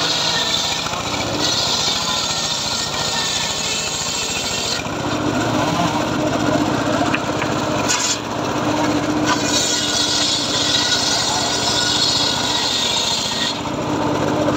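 Homemade engine-driven table circular saw ripping a plank of old teak. The blade's loud rasping cut runs for about the first five seconds, then gives way to the steady hum of the free-running blade and engine. It cuts again from about nine seconds until shortly before the end.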